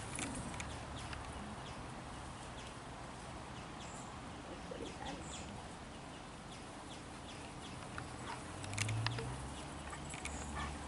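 Dogs playing on grass: scattered light ticks and rustles over a steady low outdoor rumble, with one short low grunting sound from a dog about nine seconds in.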